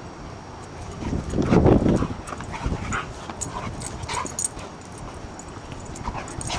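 Several dogs play-wrestling and vocalizing: a louder rough burst about a second and a half in, then short high whimpers and yips.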